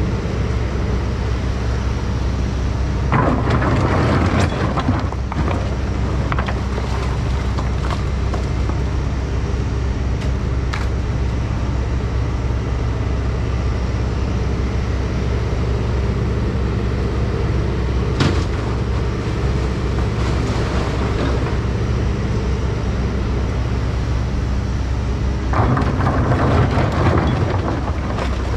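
Takeuchi mini excavator's diesel engine running steadily while it digs out rock and silt and loads a dump truck. Two stretches of rock and mud rattling, a few seconds in and near the end, and a single sharp knock in between.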